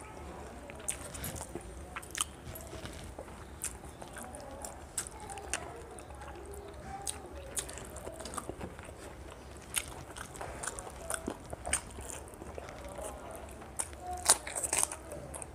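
Close-up mouth sounds of a person eating rice and curry by hand: chewing with an irregular run of wet clicks, and one louder bite near the end, over a faint steady low hum.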